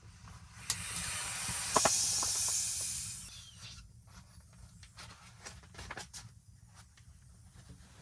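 A hiss lasting about two and a half seconds, building and then fading, set among a few small knocks and rustles.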